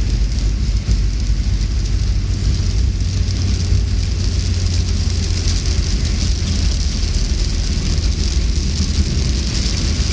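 Steady rain hissing over a continuous heavy low rumble.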